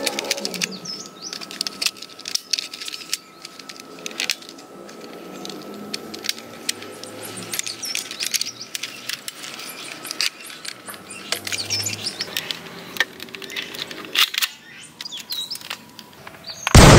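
Plastic clicks and rattles of a black toy rifle being handled and its magazine fitted, with birds chirping in the background. A sudden loud bang near the end.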